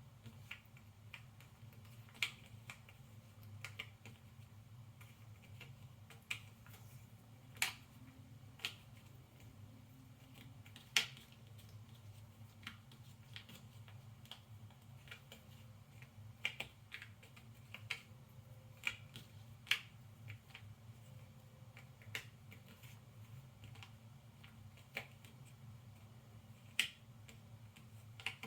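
Cardboard jigsaw puzzle pieces being picked up, shuffled and set down on a table: irregular light clicks and taps, about a dozen sharper ones among many faint ones, over a faint steady low hum.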